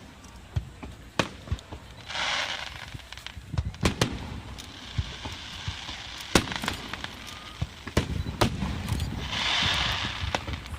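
Aerial fireworks bursting: many sharp bangs at irregular intervals. There is a stretch of hissing about two seconds in and another near the end.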